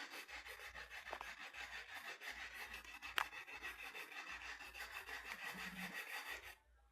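Dry rubbing and rustling as a leaf-wrapped lepet is handled and tied with split-bamboo string, with a sharp tick about three seconds in. The sound cuts off abruptly near the end.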